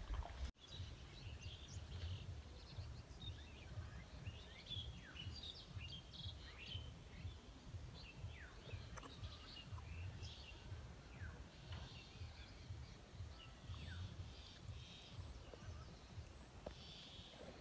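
Faint outdoor ambience: a low, uneven rumble with scattered short bird chirps throughout.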